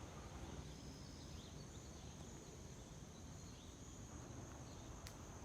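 Faint outdoor ambience: insects droning steadily at a high pitch over a low rumble, with a single sharp click near the end.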